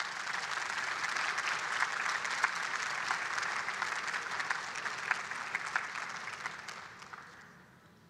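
Audience applauding, a steady patter of many hands clapping that dies away near the end.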